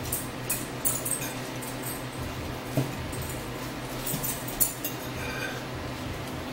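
Forks clinking and scraping against plates and bowls during a meal, a string of short sharp clicks with a soft knock near the middle. A brief faint squeak about five seconds in.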